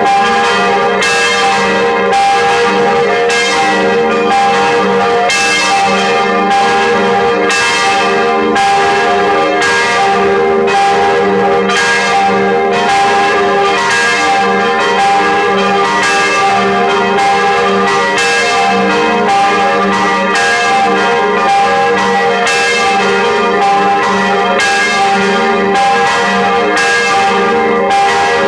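Church bells ringing, struck about twice a second, their tones ringing on and overlapping into a continuous peal.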